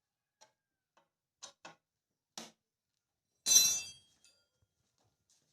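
Small clicks and taps of hands handling wires and tools, then a louder rasp of about half a second around three and a half seconds in.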